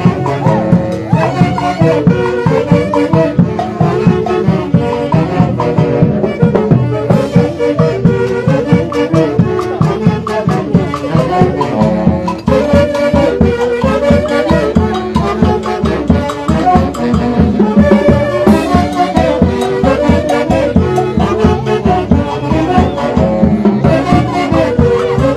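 Wind band music: a melody carried by brass or wind instruments over a steady beat.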